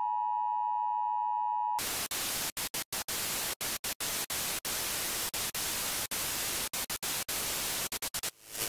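TV 'no signal' sound effect: a steady high test-tone beep for nearly two seconds, then it cuts to television static hiss. The static keeps dropping out in many brief gaps, a glitch effect, until it stops near the end.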